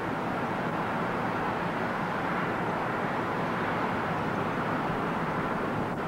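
Steady, even background noise with no distinct calls or events.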